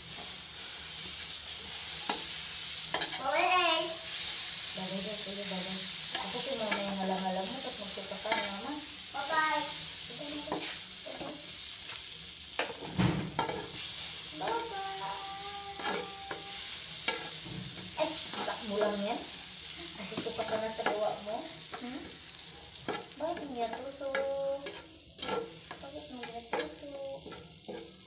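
Margarine sizzling as it melts in a hot wok, stirred with a spatula that scrapes the pan and knocks it sharply once about halfway through. A voice is heard in the background.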